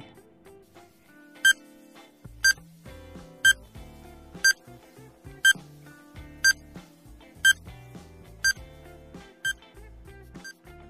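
Countdown-timer sound effect beeping once a second, nine short high beeps, over soft background music.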